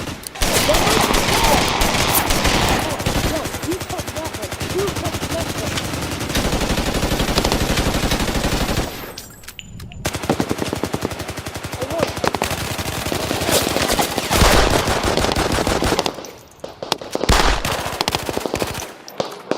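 Sustained automatic machine-gun fire: dense rapid strings of shots with overlapping bursts. It dies down briefly about nine seconds in, then resumes and breaks into shorter bursts near the end.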